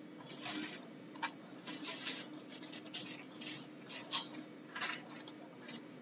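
Computer mouse in use: short scraping swishes as it slides over the desk, with a few sharp button clicks, over a faint steady electrical hum.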